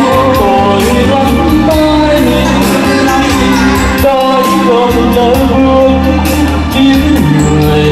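A male singer performs a slow Vietnamese song about his mother through a microphone and PA, over a backing track.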